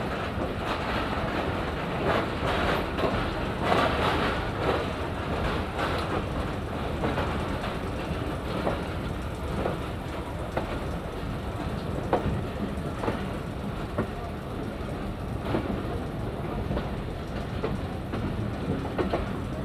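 Shalimar Express passenger train running on the rails: a steady rumble with irregularly spaced clacks of the wheels over rail joints.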